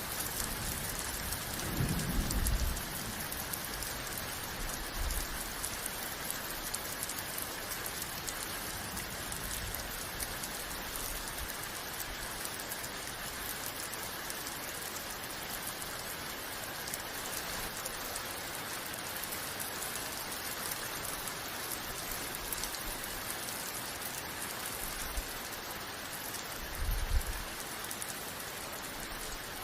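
Steady heavy rain falling, an even dense hiss of drops on surfaces. Brief low rumbles break in about two seconds in and again near the end.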